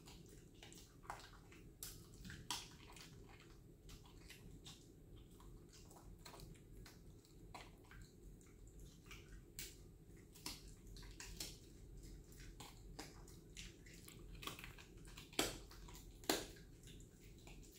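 A dog eating, with quiet, irregular wet licking and chewing clicks, and two sharper clicks about a second apart near the end.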